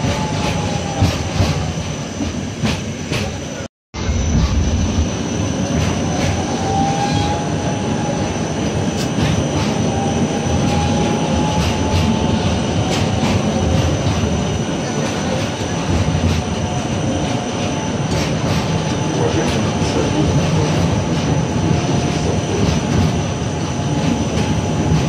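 A street tram rolling along its rails, heard on board: a steady rumble of wheels on track with faint wheel squeal sliding up and down in pitch, and a constant high tone above it. The sound cuts out for a moment about four seconds in.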